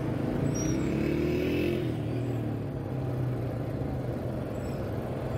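City traffic: a steady low engine hum with the noise of passing cars and motorcycles, and an engine rising in pitch as it speeds up about a second in.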